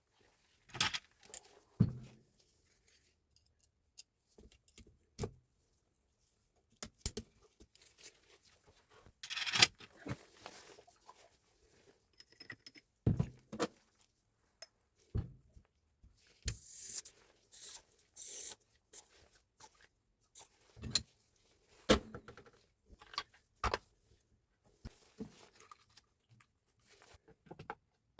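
Irregular clinks, clicks, knocks and short scrapes of small metal parts and hand tools being handled during a power tool repair, with uneven gaps between them.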